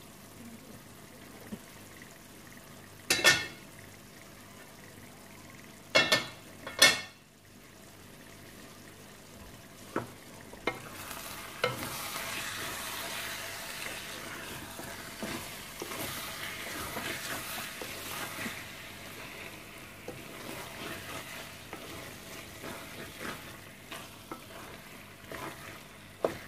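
Thick spinach-and-chicken curry sizzling in a steel pot and being stirred with a wooden spatula. Three sharp metallic clanks come in the first seven seconds, then from about eleven seconds on a steady sizzling hiss with the scrape and tap of stirring.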